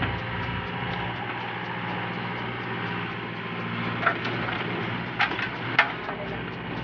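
Backhoe engine running steadily, with a few short sharp cracks or knocks between about four and six seconds in.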